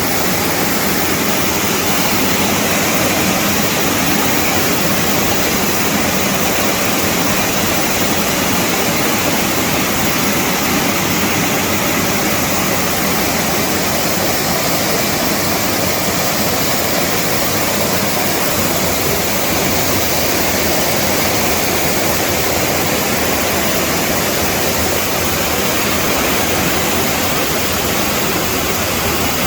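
Waterfall rushing, a loud, steady wash of falling water with no change.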